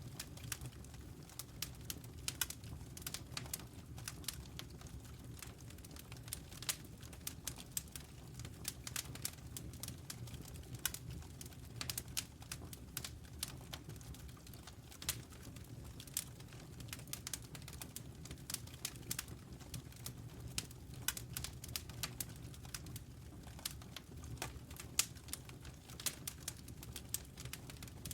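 Campfire crackling: irregular sharp pops and snaps of burning wood, several a second, over a low steady rumble.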